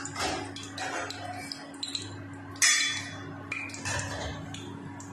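A bay leaf frying in hot oil in a pressure cooker: irregular sizzling and crackling pops, with one sharper, louder burst about two and a half seconds in, over a steady low hum.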